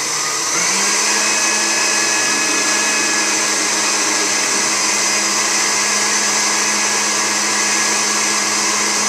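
Countertop blender motor running steadily while it blends homemade mayonnaise; the pitch rises about half a second in, then holds. The mayonnaise has not yet thickened.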